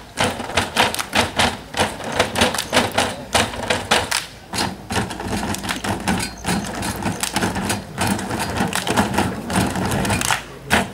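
Rhythmic tabletop percussion: many performers striking the tables at once, a fast run of sharp knocks and slaps.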